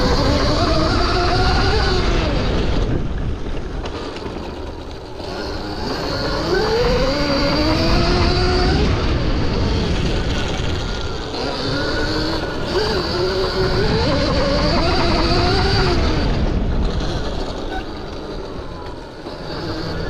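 Electric dirt bike's QS138 V3 brushless mid-drive motor and built-in gear reduction whining under throttle. The whine rises in pitch as the bike accelerates and drops back as it slows, about four times, over a steady low rumble. A thin steady high whine runs alongside.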